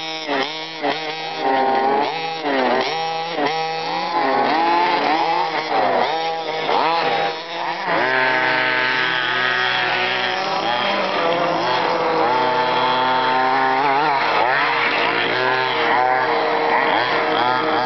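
More than one HPI Baja 1/5-scale RC buggy with small two-stroke petrol engines, revving up and down with overlapping pitches. In the first half the revs rise and fall quickly; about halfway the engines hold steadier at high revs.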